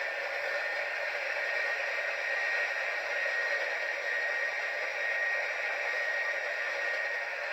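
Steady hissing from the small speaker of a sound-fitted OO gauge Class 70 model diesel locomotive, playing one of its sound-decoder effects, with a faint thin high tone held throughout.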